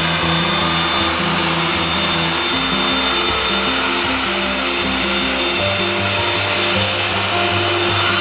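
Background music with a stepping melody, over the steady whine and rush of a Cessna Citation CJ2's twin turbofan engines as the jet taxis.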